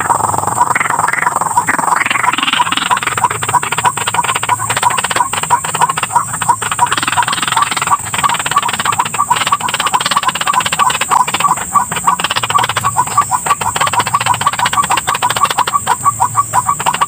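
White-breasted waterhen calling: a loud, harsh, rapidly repeated croaking note kept up without a break, with rougher squawks mixed in.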